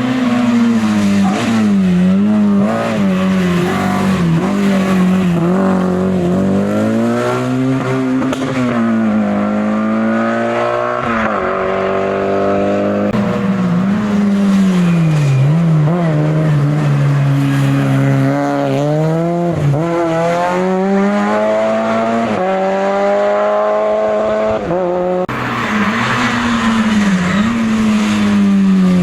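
Hill-climb race car engine driven hard, its revs climbing and falling again and again through the gears, with several sharp jumps in pitch at gear changes.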